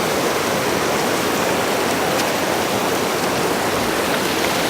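Waterfall: a steady, loud rush of falling water, heard from the top of the falls.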